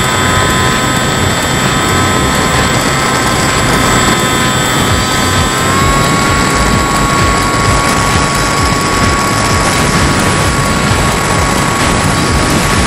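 The HobbyKing Bix3's electric brushless motor and pusher propeller whine steadily in flight, over a steady rush of wind on the on-board microphone. A little before halfway through, the whine steps up slightly in pitch as the throttle is opened.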